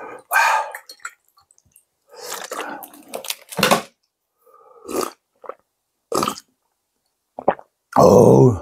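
Close-miked mukbang eating sounds: slurping perilla-seed sujebi broth and chewing the soft dough flakes. The sound comes in about six separate short bursts with silence between them, and the loudest, a short throaty one, comes near the end.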